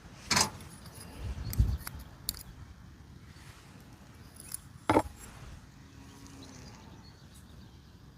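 A few sharp clicks and knocks of small parts being handled and set down, with a duller thump about a second and a half in.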